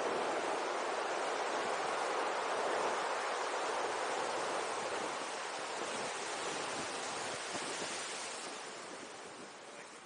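Ocean surf breaking and washing over rocks and pebbles, a steady rush that slowly fades over the last few seconds.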